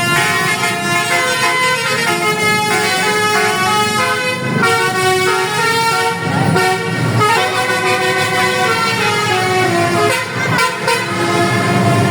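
Basuri (telolet) musical air horns on two buses playing tunes in turn and over each other: a string of held notes that step up and down in pitch, with no break.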